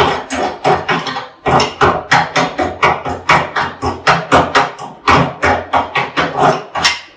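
Chipping hammer tapping slag off a freshly run E7018 stick-weld bead on a steel lap joint. Quick sharp strikes come about five to six a second in three runs, with short pauses about a second and a half in and again about five seconds in.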